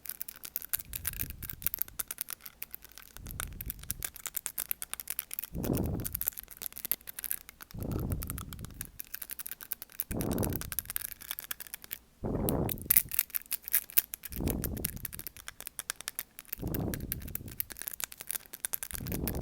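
Microphone wind noise: low rumbling whooshes about every two seconds, over a steady crackle of fine clicks.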